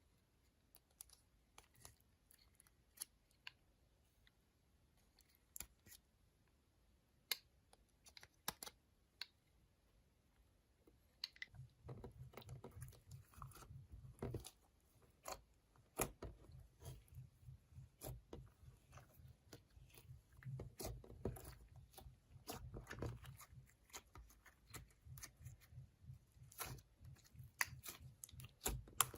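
Slime and makeup being handled and mixed by hand. Scattered small clicks give way, about eleven seconds in, to a dense run of soft crackling and squishing.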